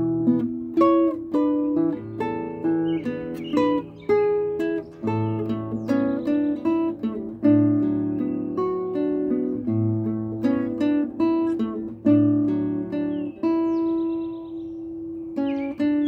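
Nylon-string classical guitar played fingerstyle: a slow melody of plucked notes over bass notes, with a chord left to ring out about two seconds before the end. Birds sing now and then behind it in short high trills.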